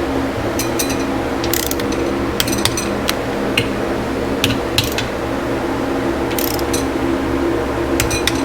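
Hand torque wrench ratcheting in short bursts of clicks, about nine groups, as engine case bolts are tightened to 160 inch-pounds. Under it, the steady hum of an air conditioner.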